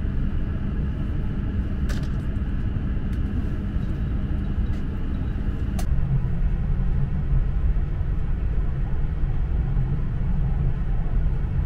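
Steady low rumble inside the cabin of an E6-series Komachi Shinkansen moving through a station, growing a little louder about halfway through, with two sharp clicks.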